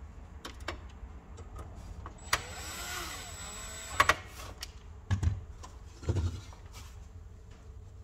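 Cordless drill-driver running for under two seconds with a wavering whine as it drives a screw into a sheet-metal case, followed by a few sharp knocks and dull clunks as the metal case is handled.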